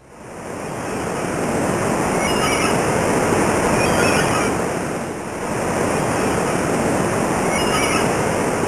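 Ocean surf: a steady rush of breaking waves that swells in over the first second, eases briefly about halfway through, then builds again.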